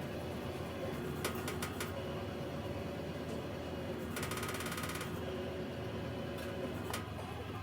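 A machine running with a steady hum, with a few sharp clicks about a second in, a brief rapid rattle about four seconds in, and another click near the end.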